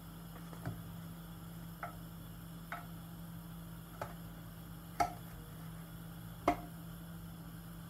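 Spatula knocking and tapping against a frying pan as a pancake is worked: about six separate light clicks, the two loudest about a second and a half apart in the second half, over a steady low hum.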